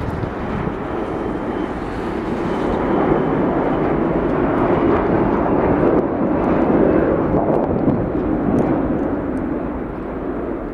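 Delta McDonnell Douglas MD-80-series jetliner passing low overhead on landing approach with gear down: loud, steady jet engine noise that swells to its loudest in the middle and eases slightly near the end.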